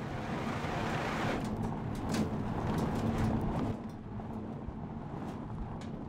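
Mercedes-Benz C-Class All-Terrain driven hard over loose gravel: the engine runs steadily under a rushing noise of tyres and wind, with scattered crackles of stones. It eases a little in level just before the end.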